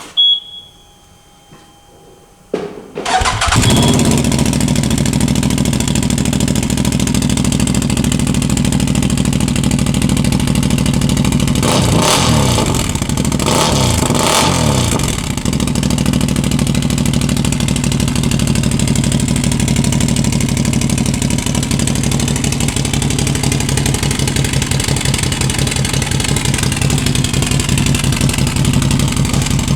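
CFMOTO ZForce 800's V-twin engine breathing through an RJWC Krossflow slip-on exhaust: it is started about three seconds in and settles into a steady idle. It is revved briefly twice near the middle, then idles again.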